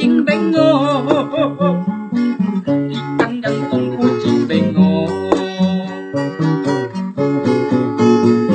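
Acoustic guitar strummed in steady chords, with a man singing along; a long wavering sung note in the first couple of seconds.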